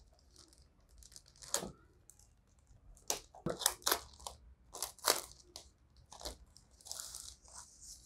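Thin plastic wrapping crinkling as it is pulled open and off by hand: irregular sharp crackles, with a longer rustle near the end.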